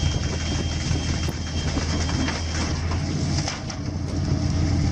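Fishing boat's engine and net-hauling machinery running as a heavily loaded net is lifted aboard: a steady low drone with occasional knocks.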